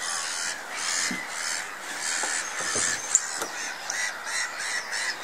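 Many birds calling at once: short high calls overlap and repeat several times a second, with one sharper, louder call about three seconds in.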